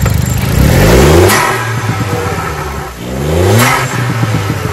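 Turbocharged three-cylinder engine of a stage 2 remapped VW Polo 1.0 TSI revved twice while stationary, each rev ending in the hiss of the turbo blow-off valve venting as the throttle shuts.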